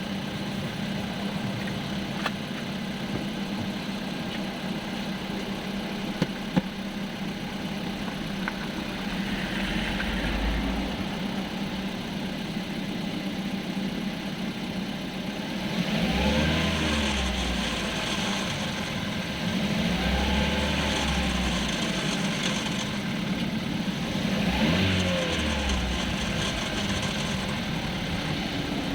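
Hyundai Creta 1.6's engine idling with a manual gearbox, blipped four times. The owner presents it for a grinding noise in the manual gearbox. Two sharp clicks about six seconds in.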